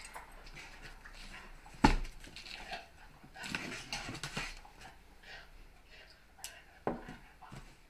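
A shipping box being handled and opened on a table: a sharp knock about two seconds in, then rustling and scraping of the packaging, and another knock near the end.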